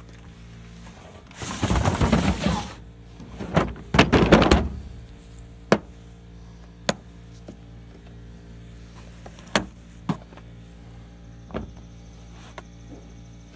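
A hard plastic socket-set case scraping and knocking as it is handled and set down on sheet metal, in two loud stretches, followed by a scatter of single sharp clicks and taps.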